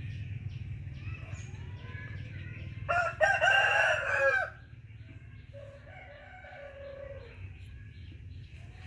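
A rooster crowing once, loud, about three seconds in and lasting about a second and a half, followed a couple of seconds later by a fainter, slowly falling call.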